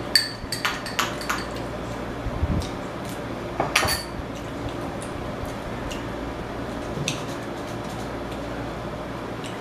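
Metal spoon clinking and scraping against a small glass bowl of sauce. A quick run of clinks comes in the first second and a louder one a little before four seconds in, then only a few faint ticks.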